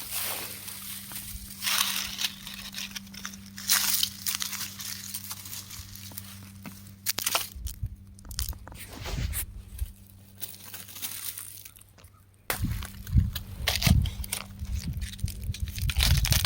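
Rock crumbling and being crushed, crunching and crackling in irregular bursts. It goes nearly quiet shortly before the last few seconds, then comes back with heavier, deeper crunches.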